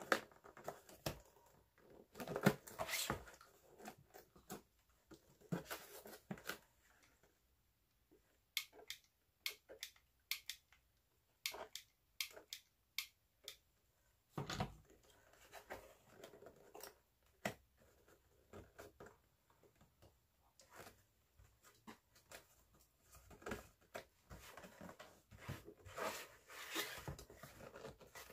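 Stiff poster board being handled, pressed and rolled around a cardboard form on a cutting mat: soft rustles and scrapes with scattered light taps and clicks, separated by quiet gaps.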